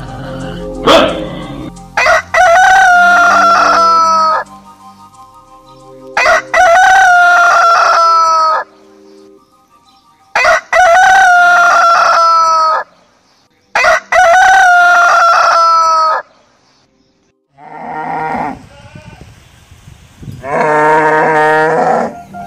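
Roosters crowing four times, each crow a long call of about two seconds that sags slightly in pitch, coming roughly every four seconds. Softer, broken calls follow, then a lower, shorter call near the end.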